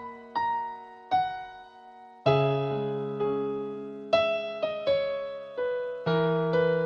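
Solo piano playing slow chords, each struck and left to ring out, with deep bass notes coming in a little over two seconds in.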